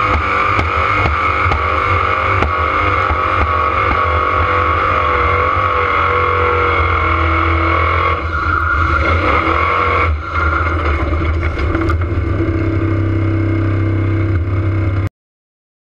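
Formula Offroad buggy's engine running hard and steady, heard from inside the cockpit as the car skims across water, dipping briefly twice in the second half. The sound cuts off suddenly near the end.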